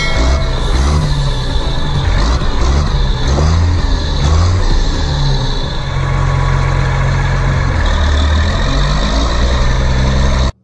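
Tractor engine running and revving up and down, its low drone shifting pitch every second or so, then cutting off abruptly near the end.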